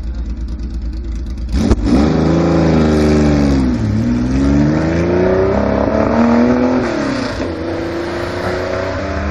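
Historic rally car engine held at revs on the start line, then launching hard about a second and a half in and accelerating away. Its pitch climbs, drops with a gear change, climbs again, drops with a second gear change and climbs once more as it fades into the distance.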